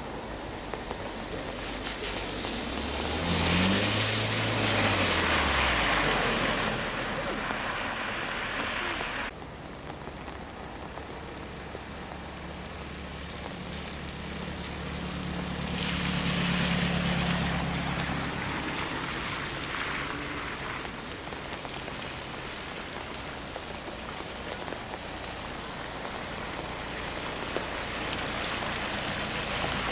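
BMW cars driving past one after another on a soaked road, their tyres hissing through the water, with an engine note that rises and falls as each car goes by; two passes stand out, early and in the middle. Rain patters steadily underneath.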